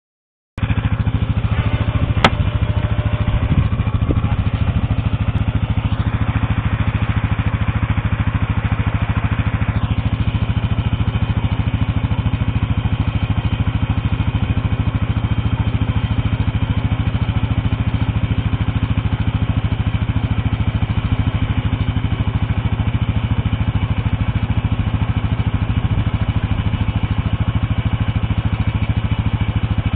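ATV engines running steadily at idle, an even unchanging engine note. A single sharp click about two seconds in.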